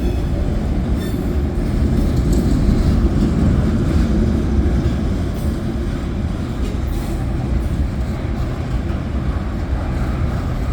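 Freight train rolling past on the tracks: a steady, loud rumble of wheels and cars.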